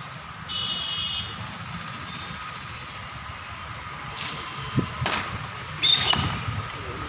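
A few sharp knocks and crashing impacts about five to six seconds in, the loudest near six seconds, over a steady outdoor background with a faint constant high tone.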